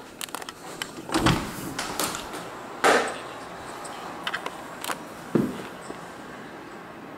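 Interior panel door with a round knob being opened: a few quick latch clicks, then a series of knocks and thumps as the door is handled and swung open, the loudest about a second and about three seconds in.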